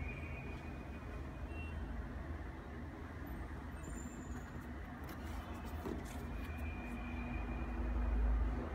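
Steady low rumble with a hiss above it, swelling a little louder near the end, with a few faint clicks about two-thirds of the way through.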